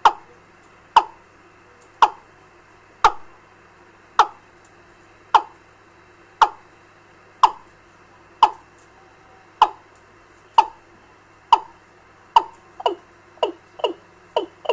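Recorded fowl lure call ('gà' call for night bird trapping) played back through a trapping amplifier and speaker. It is a series of short, sharp notes that drop in pitch, about one a second, coming faster and in pairs near the end, over a faint steady hum.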